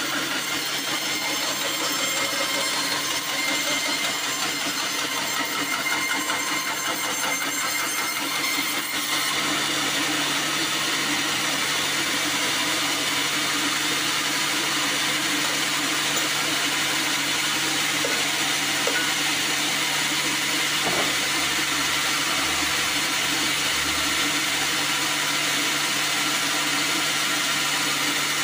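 Band sawmill running steadily with a constant motor hum, its blade sawing lengthwise through a black acacia log.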